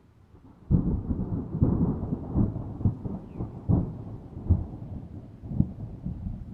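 Thunder: a sudden loud peal about a second in, then a continuing low rumble broken by repeated sharp crackles.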